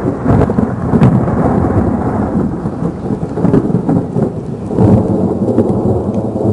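Thunderstorm noise: rain and wind with deep rumbling surges, loudest about half a second in and again near five seconds.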